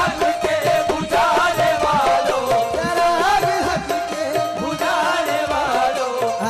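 Live qawwali: male voices singing over a harmonium's sustained melody, with a hand drum keeping the beat.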